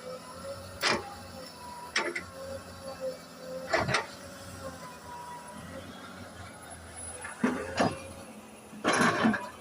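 Excavator working: its engine runs steadily under a string of sharp metallic clanks and knocks, about six of them, the longest cluster near the end.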